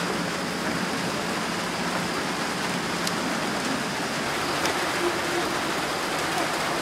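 Steady, even outdoor hiss of water-like noise with a faint thin high tone running through it and a couple of faint ticks.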